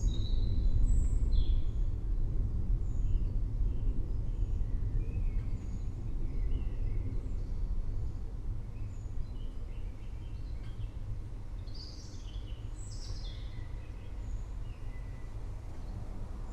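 Forest birds chirping and trilling over a low, rolling rumble of distant thunder that slowly fades away. The bird calls grow busier about twelve seconds in.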